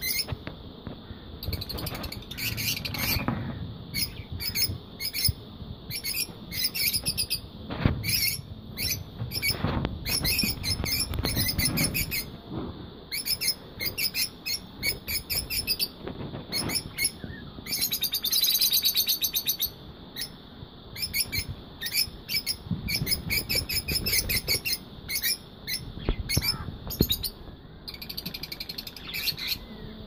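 A flock of lutino peach-faced lovebirds chirping: shrill, short calls in quick, overlapping runs, with a dense burst of chatter about two-thirds of the way through.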